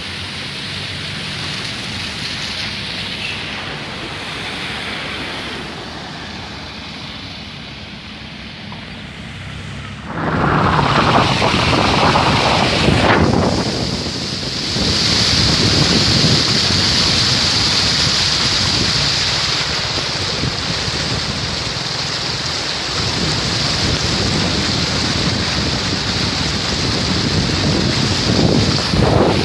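Steady rain with a rushing noise and no pitched sounds, which turns much louder about ten seconds in and stays loud.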